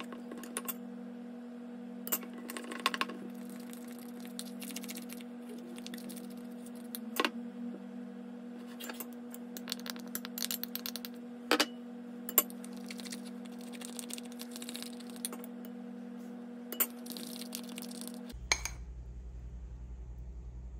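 Metal fork clinking and scraping against a small glass bowl while stirring icing sugar and water into a lemon glaze, with sharp taps scattered throughout. A steady low hum runs underneath and shifts lower near the end.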